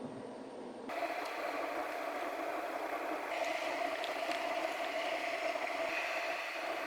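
Steady rushing of surf and water, with no clear pitch. The sound changes abruptly about a second in, as at a cut between shots.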